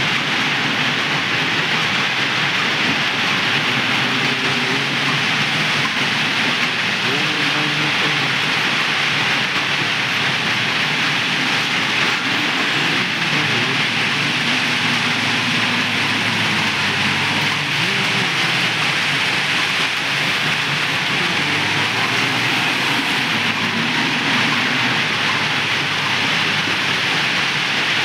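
ACE 4×4 backhoe loader's diesel engine running as the machine drives and works, its pitch rising and falling, under a loud, steady hiss.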